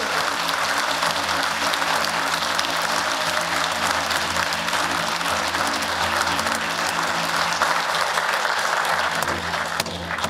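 A hall audience applauding steadily, the clapping thinning out near the end.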